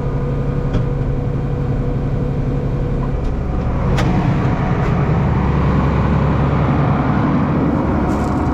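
Farm tractor engine running steadily, its low hum growing louder about three seconds in, with a single sharp click about a second later.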